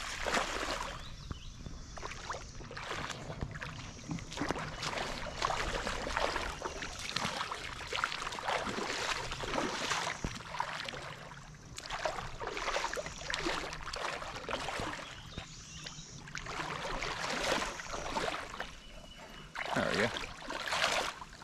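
Irregular splashing and sloshing of water in uneven surges, with a strong surge near the end, as a hooked fish fights at the surface.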